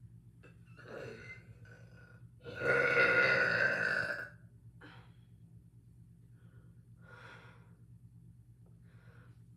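One loud, echoey burp from a person, lasting about a second and a half a few seconds in, with a shorter, quieter burp-like sound just before it.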